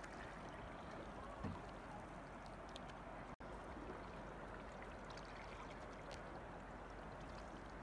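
Faint water sounds of a canoe being paddled on calm water: a steady low hiss with a few small knocks, broken by a very brief cut-out about a third of the way through.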